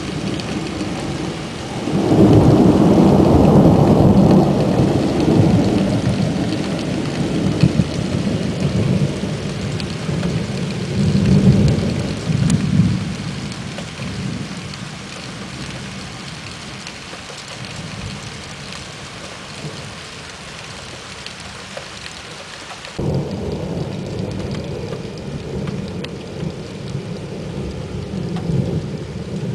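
Thunder from a night thunderstorm, with steady rain throughout. A long, loud peal of rolling thunder starts about two seconds in and slowly dies away, with a second swell partway through. Another rumble sets in abruptly near the end.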